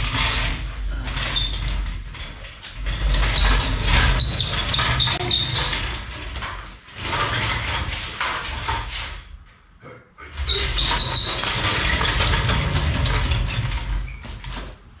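Loud mechanical rattling and grinding with a low rumble, in four stretches of a few seconds each with short pauses between.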